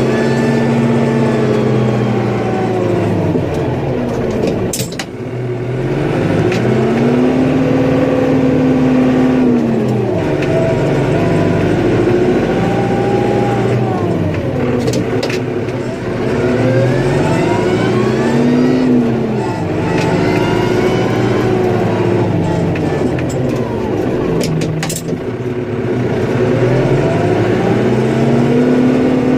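Snowplow vehicle's engine revving up and falling back again and again, about every five or six seconds, as it pushes snow. A sharp clack comes about every ten seconds, between revs.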